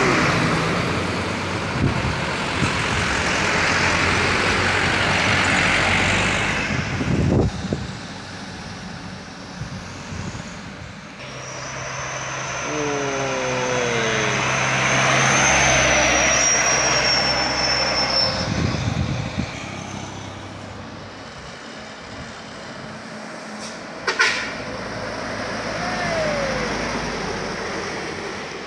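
Heavily loaded diesel trucks passing close one after another on a steep climb, engines running under load. The engine pitch falls partway through, a thin high whistle holds for several seconds, and a short sharp burst comes near the end.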